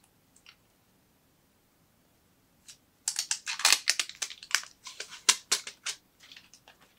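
A white charging cable and plastic wall plug being handled and unwound: after a faint tick or two, a burst of crinkly rustling and clicking starts about three seconds in and lasts about three seconds, then trails off.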